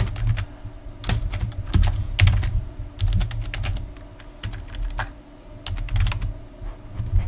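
Computer keyboard keys being typed in quick, irregular clicks while an email address is entered, over a steady low hum.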